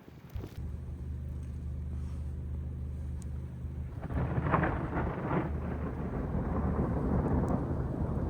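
Thundersnow: thunder rumbling during a blizzard. It starts low about half a second in and swells louder about four seconds in, rolling on to the end.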